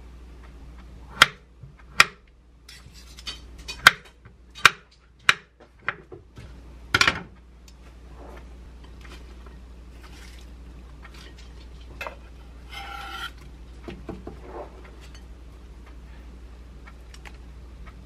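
A kitchen knife knocks sharply against a wooden cutting board as an avocado is sliced, about eight knocks in the first seven seconds. After that come softer handling sounds as salad is tipped from a glass bowl onto a plate, with a brief ringing scrape about thirteen seconds in.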